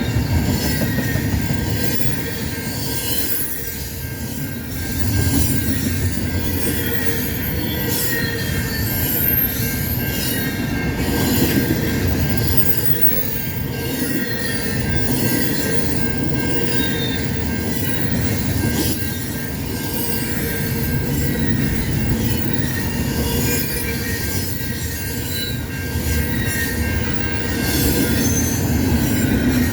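Cars of a CN intermodal freight train rolling past: a steady rumble of wheels on rail, with thin high-pitched wheel squeal throughout and occasional clicks over rail joints.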